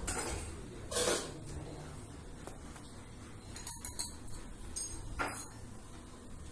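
Short scrapes and light clinks of steel kitchenware being handled: one scrape about a second in, a few small ticks near four seconds, and another scrape about five seconds in.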